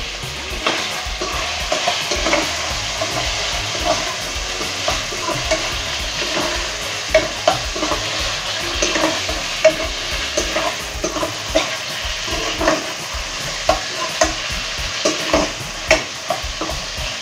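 Shaved deli bacon sizzling in hot oil in a frying pan, with a spoon scraping and clicking against the pan at irregular intervals as the bacon is stirred.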